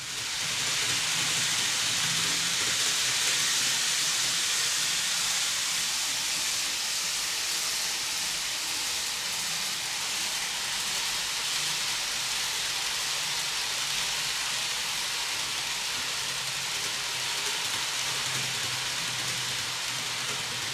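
An N gauge model of the Kato 0 Series Shinkansen running along the layout track: a steady rushing hiss of wheels and motor, with a faint low hum underneath.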